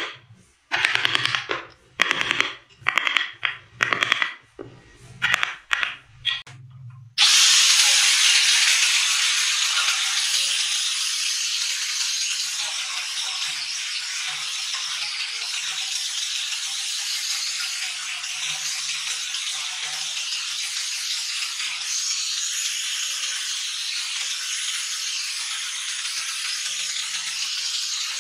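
A mallet driving a carving chisel into wood, about ten knocks a little over half a second apart. About seven seconds in, an electric angle grinder with a sanding disc starts abruptly and runs steadily, grinding the wooden carving.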